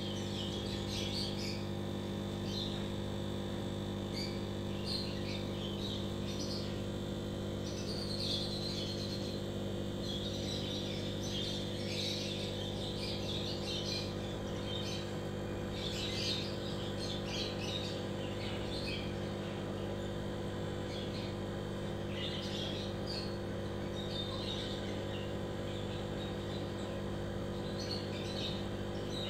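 Steady low hum of an aquarium air pump running, with small birds chirping in scattered bursts over it.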